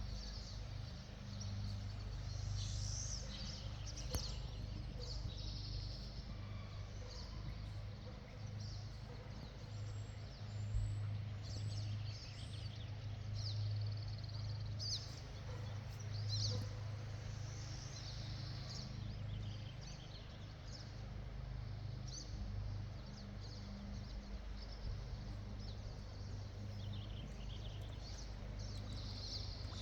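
Outdoor pond ambience: small birds chirping and singing over a steady low hum.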